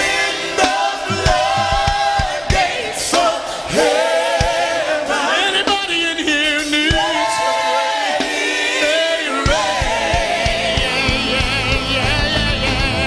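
Live gospel singing by choir and congregation, with long wavering held notes. The bass and band accompaniment thin out after the first moment and come back in strongly about three-quarters of the way through.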